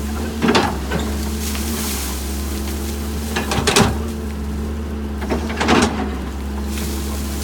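Doosan excavator's diesel engine running steadily, with short sharp noises from the machine's working parts: once about half a second in, a cluster around the middle, and again near six seconds.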